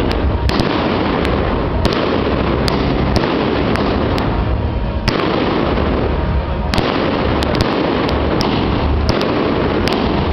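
Aerial fireworks going off: a continuous, dense rumble of bangs and crackle, with sharp pops scattered irregularly throughout.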